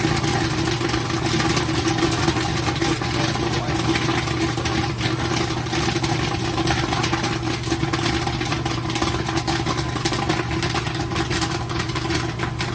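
Commercial popcorn kettle machine running with a steady motor hum and a constant low tone. Scattered sharp clicks of kernels popping in the kettle run through it.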